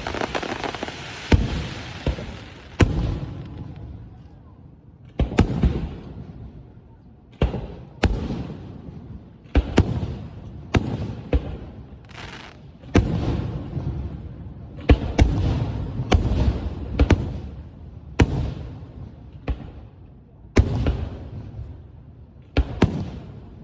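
Aerial fireworks shells bursting one after another, about one sharp bang a second, each trailing off in a rolling echo. A crackling hiss fills the first few seconds between the bangs.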